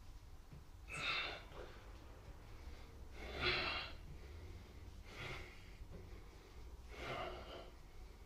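A man breathing hard from the strain of decline push-ups, with four sharp exhales about two seconds apart. The one about three and a half seconds in is the loudest.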